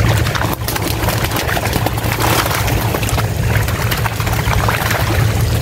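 Tilapia thrashing and splashing in a shallow seine net as they are grabbed by hand and tossed into plastic baskets: many short, irregular splashes and slaps of water. A steady low hum runs underneath.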